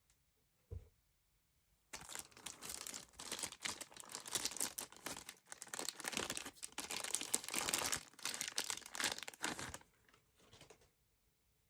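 Packaging being crumpled and crinkled by hand in a dense run of crackling that starts about two seconds in and stops about ten seconds in, with a short last rustle after it.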